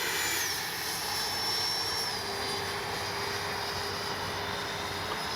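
Electric ducted fan of an 80mm RC jet (12-blade fan on a 2000 KV in-runner motor) running in flight: rushing air with a thin high whine that drops in pitch twice, about half a second and about two seconds in.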